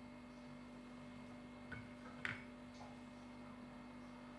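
Quiet room tone with a steady low hum, broken by two light clicks about two seconds in, the second a little louder.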